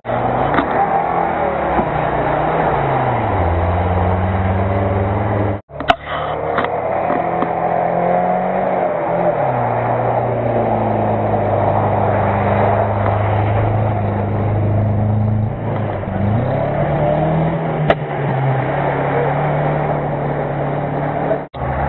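Off-road 4x4 engine revving hard under load while the vehicle ploughs through deep mud and shallow water. Its pitch rises and falls again and again over the rush of splashing water. The sound cuts out briefly twice, about six seconds in and near the end.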